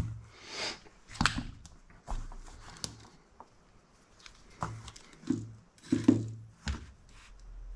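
Scattered light clicks and knocks of a small carbon-fibre drone frame and a pen-style soldering iron being handled and set down on a rubber work mat, with the loudest knock about six seconds in.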